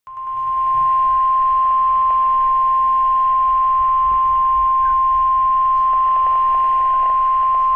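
NOAA Weather Radio 1050 Hz warning alarm tone: one steady, loud, high tone over faint radio hiss, the alert that comes before a new weather watch or warning is read.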